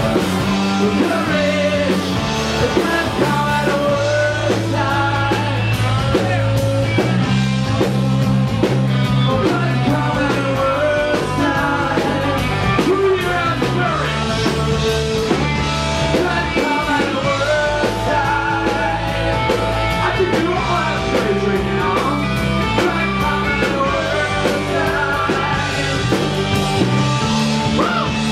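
Live rock band playing: electric guitar, bass guitar and drum kit, with a male singer singing into a handheld microphone.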